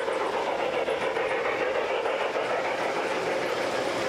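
G-scale model train running past on its track: a steady whir and rattle of its wheels on the rails, with a faint steady hum underneath.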